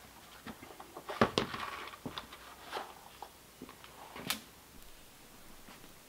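Sharp clicks and knocks of small hardware and hand tools being handled on a wooden workbench. The loudest cluster comes a little over a second in, with lighter ticks after it and another knock just past four seconds.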